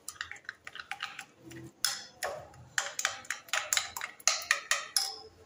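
A spoon stirring thick semolina-and-yogurt batter in a glass bowl, clicking and scraping against the glass in an irregular run of taps, a few a second.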